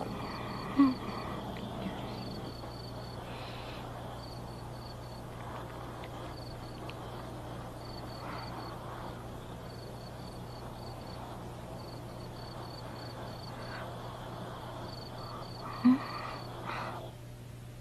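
Crickets chirping in short repeated pulses over a steady low hum. Two brief, loud sounds break in, one about a second in and one near the end.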